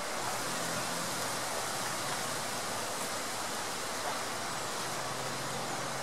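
The Soča river flowing: a steady, even rush of water.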